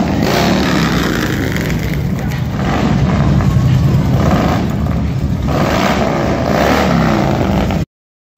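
A procession of V-twin touring and cruiser motorcycles, Harley-Davidson style, rumbling past at parade speed, swelling as the nearest bikes go by. The sound cuts out abruptly for a moment near the end.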